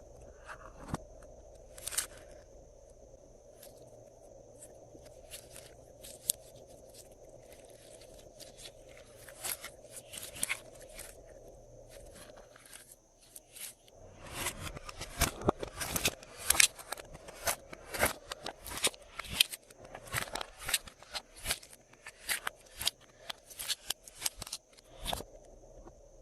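Glossy slime being kneaded and squeezed by hand, giving sharp wet clicks and pops. The clicks are sparse at first and come fast and close together from about halfway through.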